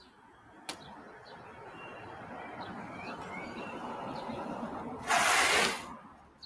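Bicycle tyres rolling on wet asphalt, growing louder as the bike approaches, then a loud scratching skid lasting about a second as the tyre slides sideways in a drift.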